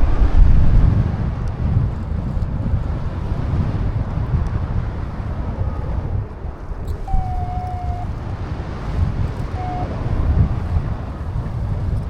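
Strong wind buffeting the microphone, a heavy low rumble that is loudest at the start. A short steady tone sounds about seven seconds in, and a shorter one about two seconds later.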